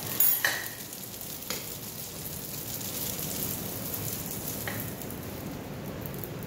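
Hot pan of garlic noodles still sizzling as the noodles are tipped and scraped out onto a plate with a fork. Sharp clinks of the fork come near the start, about a second and a half in, and near five seconds.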